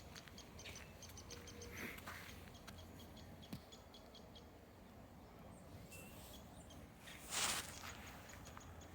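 Faint, high chip notes and short calls of small birds over a low steady rumble, with one louder short crunch about seven seconds in.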